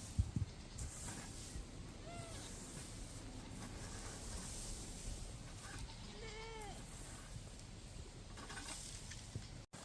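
A Nubian goat bleats twice: a short call about two seconds in and a longer, louder call that rises and falls a little past six seconds. A sharp thump comes right at the start, over a low steady outdoor rumble.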